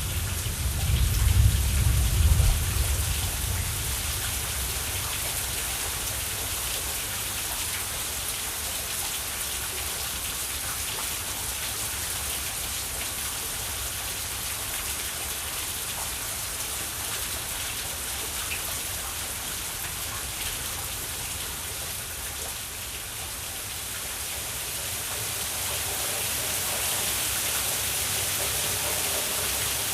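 Steady rain falling, an even hiss, with the tail of a thunder rumble dying away in the first few seconds.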